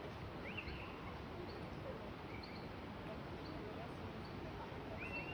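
Outdoor lakeside ambience: a steady background of distant voices, with a few short rising bird chirps, one about half a second in and another near the end.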